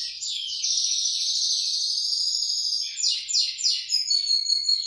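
A pet bird calling loudly and continuously in shrill, high chirps, with runs of quick downward-sweeping notes at the start and about three seconds in. These are begging calls while cheese is being broken up for it.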